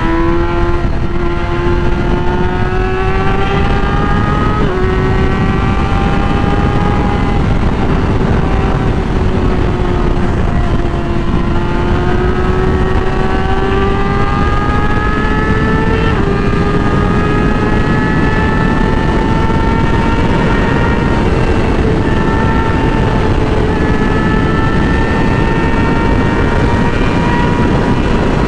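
Yamaha R6's inline-four engine running at high revs while riding, its pitch drifting slowly up and down with the throttle and stepping briefly about five and sixteen seconds in. The engine is heard over a steady rush of wind noise.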